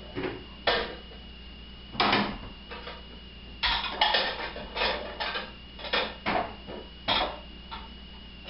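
Dishes and cutlery clattering in an irregular run of sharp clinks and knocks, with a busier cluster a few seconds in. A faint steady high-pitched whine lies underneath.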